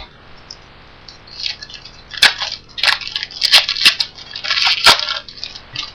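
Crinkling and crackling of a foil trading-card pack wrapper being handled and torn open. It comes as a run of sharp, irregular crackles starting about a second and a half in.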